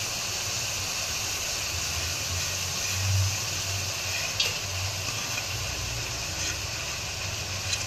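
Prawns, chicken and vegetables sizzling steadily in a hot wok, as a steady hiss over a low, even hum.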